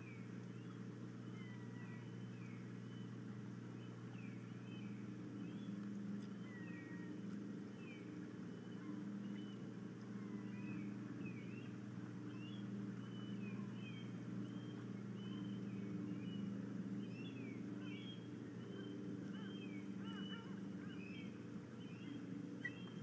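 Birds chirping and calling repeatedly with short, high whistled notes, over a steady low hum.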